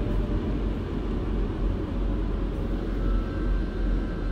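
Automatic car wash running, heard from inside the car's cabin: a steady low rumble with a hiss over it. A faint thin hum joins about three seconds in.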